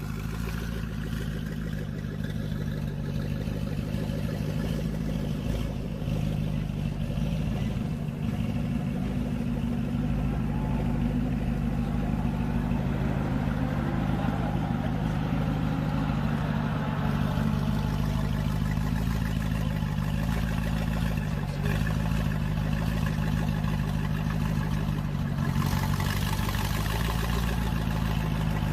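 Gumpert Apollo Sport's twin-turbocharged V8 running steadily at low revs, close to idle.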